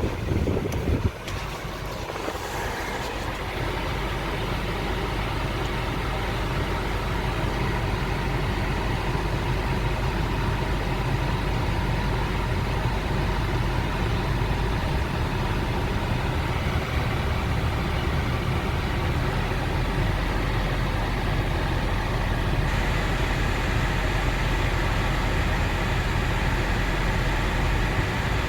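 2011 Honda CR-V engine idling steadily with the air conditioning running, during a performance check of a newly replaced AC compressor.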